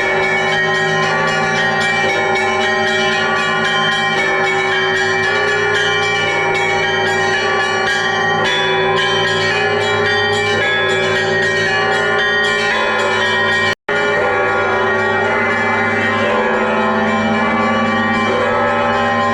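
Festive Orthodox church bell peal: many bells of different sizes ringing together, deep steady low bells under many quickly struck higher bells. The sound cuts out for a moment about 14 seconds in.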